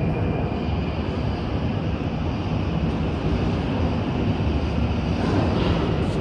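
Metro train running through a tunnel, heard from on board: a steady, loud rumble of wheels on rails and running gear.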